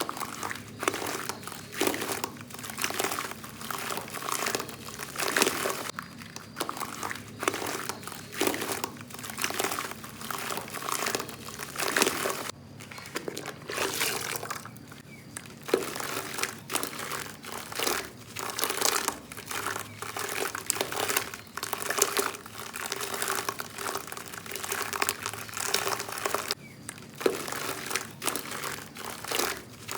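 Chunks of soft black sand crumbling and crunching into a bucket of water: a dense, irregular run of small crackles and crunches with brief lulls.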